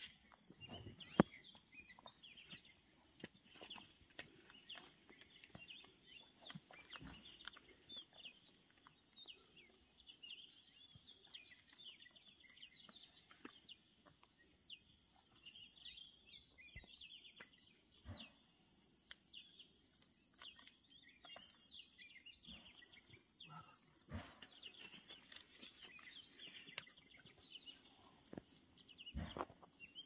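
Faint, scattered chirps and tweets of birds over a steady high-pitched hiss, with occasional soft clicks and one sharper click about a second in.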